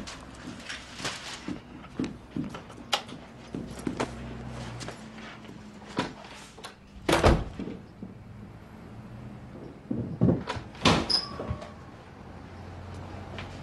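A run of knocks, clicks and thuds as a door and furniture are handled in a small room, the loudest thud about seven seconds in and another cluster around ten to eleven seconds in, over a faint low hum.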